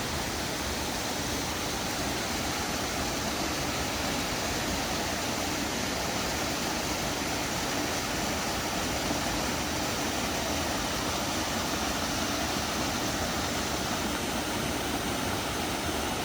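Steady rushing of flowing water, like a creek or small cascade, with no rhythm or change throughout.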